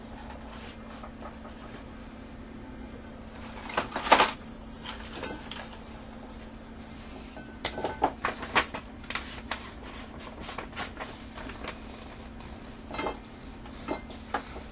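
Cut raw potatoes clacking against a metal mixing bowl as they are tossed by hand in spices and Japanese bread crumbs: scattered knocks, loudest about four seconds in and in a run from about eight to eleven seconds in. A steady low hum runs underneath.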